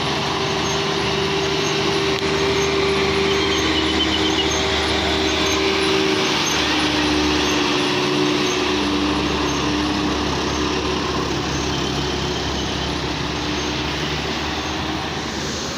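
A heavy vehicle's engine labouring under load up a steep climb. It has a steady whine that steps down in pitch about six seconds in, and the engine noise eases slowly toward the end.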